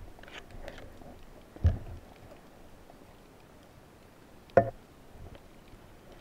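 Muffled underwater handling sounds of a Cressi speargun as a speared mullet is worked on its shaft: small clicks, then two sharp knocks, one just under two seconds in and a louder one about three seconds later, over a faint steady hiss.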